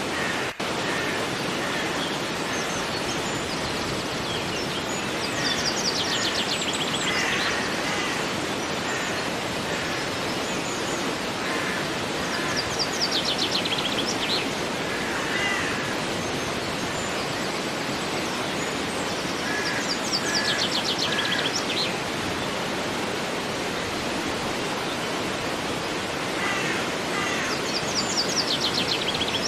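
Steady rush of a flowing river, with a songbird repeating a fast high trill four times, each lasting a second or two, and short chirps in between. The sound cuts out for an instant just after the start.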